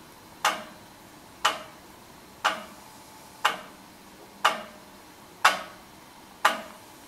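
Large motor-driven clock ticking, one sharp click every second with a brief ringing tail, seven times.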